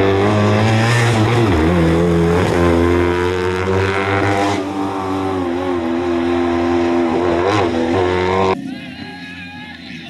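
Steyr-Puch 650T rally car's air-cooled flat-twin engine revving hard under acceleration. Its pitch drops and climbs again a few times as it shifts up, and it grows slowly fainter as the car drives away. About eight and a half seconds in the sound cuts off abruptly to a much quieter background.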